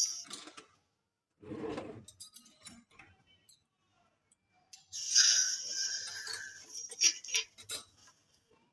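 A short low murmur of a voice, then a few seconds of close rustling with small clicks and clinks, the sound of someone moving in a puffy nylon jacket near the phone's microphone.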